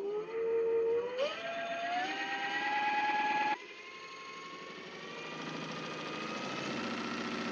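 Large homemade brushless (BLDC) motor driving a propeller, whining as the throttle is raised: the pitch steps up several times, then the sound drops abruptly about three and a half seconds in to a quieter, higher whine that keeps climbing slowly.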